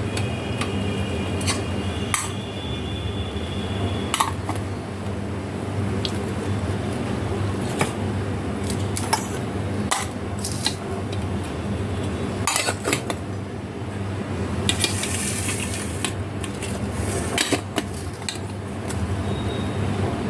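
Kitchen utensils clinking and scraping against pots and pans in irregular sharp knocks, over a steady low hum.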